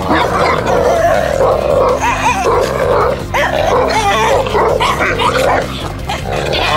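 Saint Bernards and a Pekingese growling and yipping in play while tugging on a rope toy.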